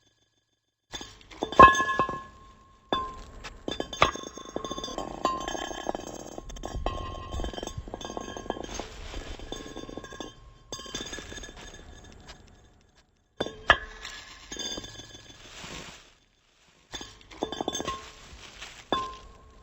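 Glass being struck and clinked over and over, each hit ringing on with clear, steady tones. The sound breaks off into complete silence three times, and the loudest hits come about two seconds in and again around fourteen seconds.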